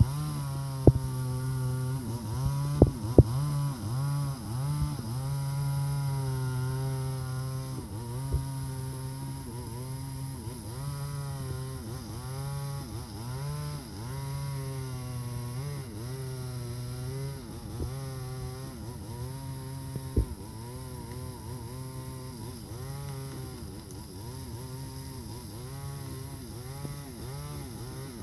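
Stihl MS 382 two-stroke chainsaw cutting mahogany, its engine note dipping and recovering over and over as the chain bogs in the wood and speeds up again. A few sharp knocks in the first few seconds.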